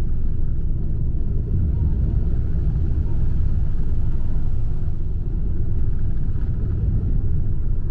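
Boeing 747-8's four GEnx-2B engines at take-off thrust, heard from inside the cabin as a steady loud rumble during the take-off roll and lift-off.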